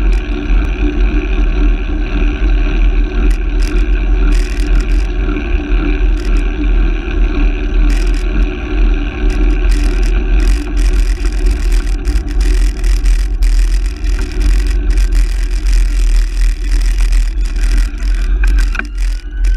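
Wind buffeting and road rumble on a camera mounted on a moving handcycle, with scattered clicks and knocks. Near the end a police siren starts to wail.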